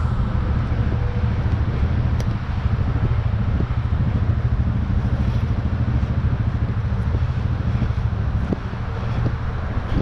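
An engine running steadily at idle, with a fast even low throb.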